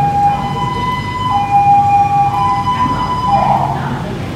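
Two-tone emergency vehicle siren alternating between a lower and a higher pitch about once a second over a low background rumble. It breaks off in a short burst about three and a half seconds in.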